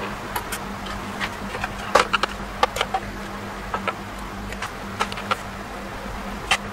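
Steady low hum with irregular sharp clicks and taps scattered through it, the densest cluster about two to three seconds in.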